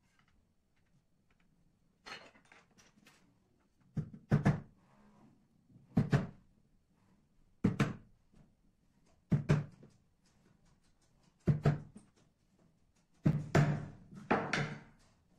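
A hammer driving small nails into a pine board with sharp knocks, in short groups of one or two blows about every one and a half to two seconds, with a denser run of blows near the end.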